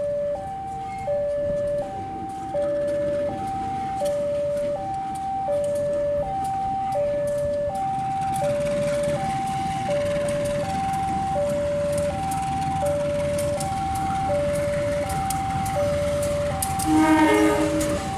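Railway level-crossing warning alarm repeating a two-tone ding-dong, each tone about three-quarters of a second, while an approaching diesel locomotive and its passenger train build up a growing rumble from about halfway through. The locomotive's horn sounds briefly near the end.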